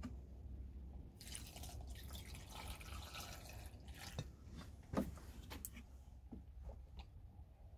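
Water poured in a thin stream from a large plastic bottle onto vegetables in a bowl, trickling and dripping for a couple of seconds, followed by a few light knocks, the loudest about five seconds in.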